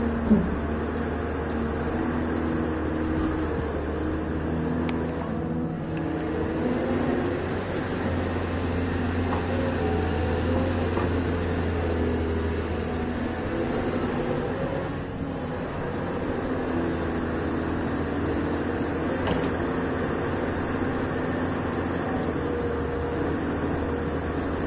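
Caterpillar 320D hydraulic excavator's diesel engine running steadily under work, its pitched tones shifting as the machine digs and swings. There is one sharp knock near the start.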